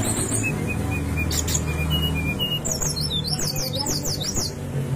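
Brown-chested jungle flycatcher singing. It gives a few high notes, then a run of short whistled notes, then a quick series of falling whistles, over a steady low hum.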